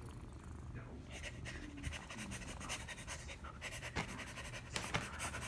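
Rapid, irregular scratchy rustling of paper and fur as a long-haired cat rolls over on a paper colouring book, starting about a second in, with a couple of sharper clicks near the end.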